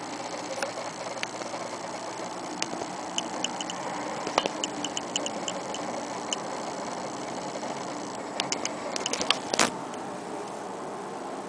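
A cat pawing at a plastic shower curtain and the bathtub wall: scattered light, high ticks and taps as its claws catch, then a quick cluster of sharper clicks and a knock a little before the end, over a steady background noise.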